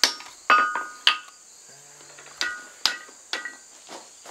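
Blacksmith's hammer striking forge-hot steel on an anvil while tapering a froe's eye: a few quick blows, a pause of about a second, then several more, each with a short metallic ring.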